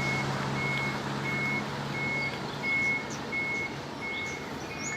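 Vehicle reversing alarm beeping at an even pace, a single high tone about one and a half times a second, over the steady noise of traffic.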